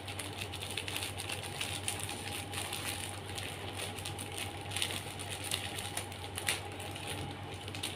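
Scissors snipping through a plastic courier mailer bag: a run of small crisp snips and crinkles, with a few louder snips in the second half.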